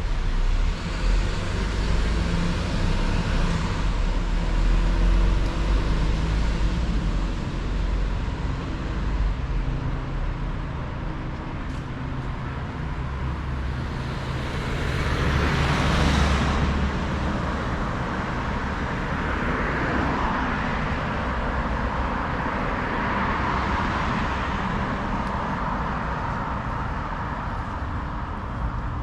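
Road traffic: cars driving past with a steady low engine hum and tyre noise, one vehicle passing close and loudest about halfway through.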